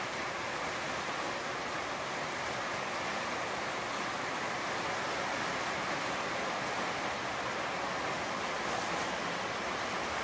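Heavy storm rain falling outside: a steady, even hiss.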